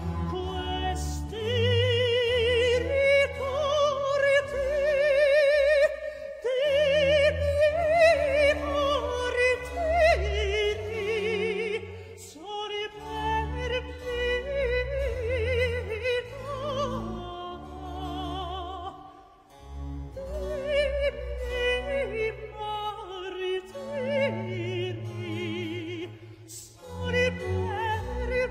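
Opera music: a high solo voice sings slow phrases with wide vibrato over a sustained low accompaniment.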